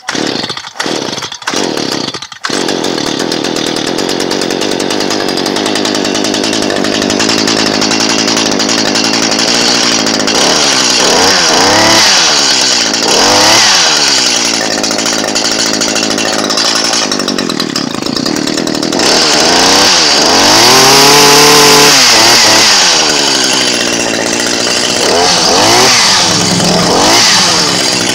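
Stihl HS45 hedge trimmer's small two-stroke engine sputters in a few short bursts, catches about two seconds in and runs. It is then revved up and down several times, its pitch rising and falling, and is loudest at a long high rev past the middle.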